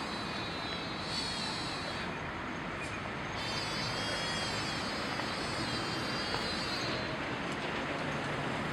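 Sika deer calling: a short high, wavering call about a second in, then a longer one of several seconds, over a steady background rush of noise.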